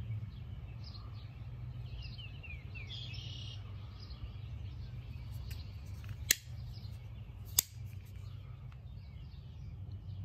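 Two sharp clicks about a second and a half apart, a little past the middle: the blades of two Cold Steel folding knives, a Raja and an SR1 Lite, snapping open and locking. Birds chirp faintly over a low steady hum.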